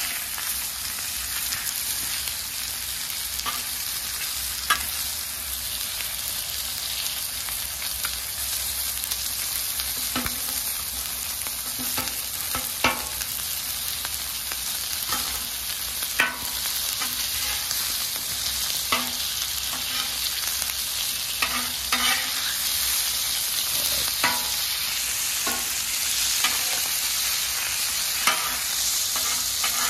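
Chicken wings sizzling in garlic Parmesan butter on a hot Blackstone flat-top griddle, a steady high hiss. A metal spatula scrapes and clicks on the steel griddle top at irregular intervals as the wings are pushed and turned.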